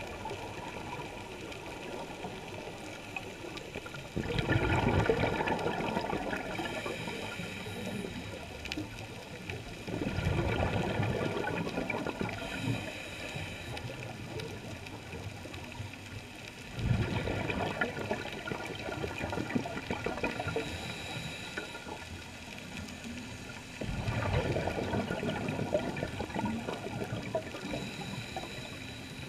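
Scuba diver's regulator exhaling underwater: four bubbling, gurgling rushes about every six to seven seconds, each starting suddenly and fading, over a steady underwater hiss.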